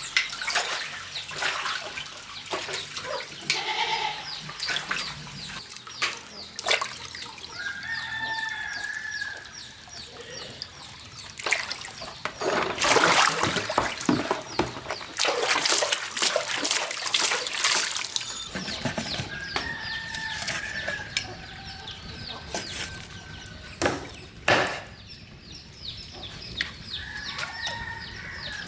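Rooster crowing three times in long drawn-out calls, over splashing water and scattered knocks and clatter.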